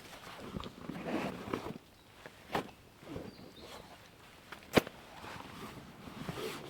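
Footsteps and rustling, with two sharp clicks; the louder one comes about two-thirds through.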